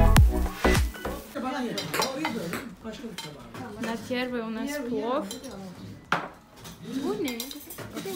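Plates and cutlery clinking at a laid dinner table among indistinct voices. Pop music with a heavy beat cuts off about a second in.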